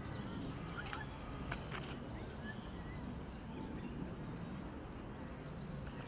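Quiet outdoor riverside ambience: a steady soft hiss of moving water and air, with a few faint short bird chirps and several soft isolated clicks.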